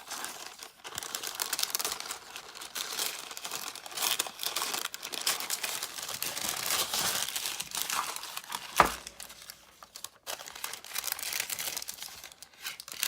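Paper packaging crinkling and rustling as it is handled and unwrapped, with a single sharp knock about nine seconds in.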